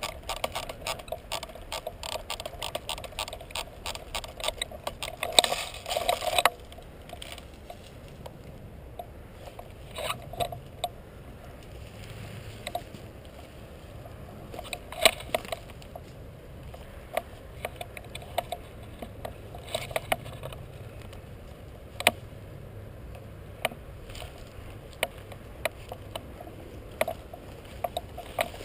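Rapid airsoft gunfire, a fast run of sharp snapping shots that stops abruptly about six seconds in, followed by scattered single sharp clicks and cracks.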